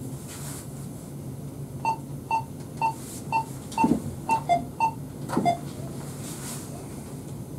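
The Lastochka electric train's cab signalling/safety system gives a run of about nine short electronic beeps, about two a second, two of them lower in pitch, with a couple of dull knocks among them, over the steady hum of the moving train. The crew take the alert as the system reacting to uncoded track, where the cab signal shows white.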